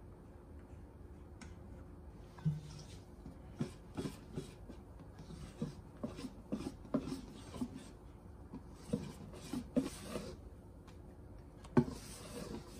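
Wire balloon whisk folding whipped egg whites into egg-yolk batter in a stainless steel bowl: irregular clinks and scrapes of the wires against the metal, the sharpest near the end.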